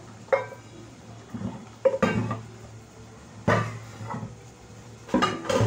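A metal cooking pot and a perforated metal colander knocking against a stainless steel sink: about five sharp metallic clanks with short ringing, two of them close together near the middle.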